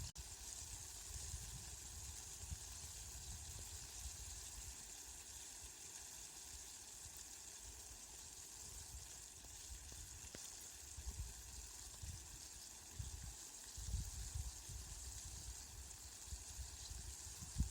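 Steady rain falling, an even hiss without a break, with irregular low rumbles underneath.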